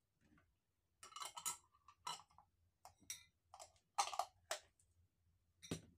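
Screw cap being twisted onto a glass jar: a run of scraping clicks, loudest about four seconds in, then one sharp click near the end.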